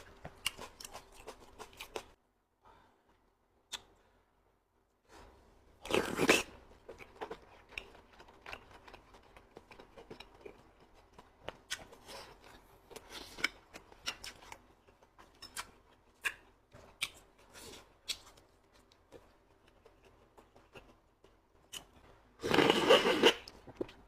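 Close-up eating sounds: a person chewing and tearing food, with many small wet clicks and smacks, a brief silence a few seconds in, and louder crunching bursts about six seconds in and near the end.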